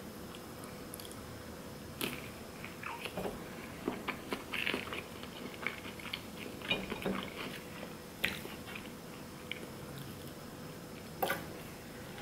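A person chewing a mouthful of sushi: irregular wet clicks and soft crunches, busiest over the first several seconds. It then goes quieter, with one sharper click about eleven seconds in.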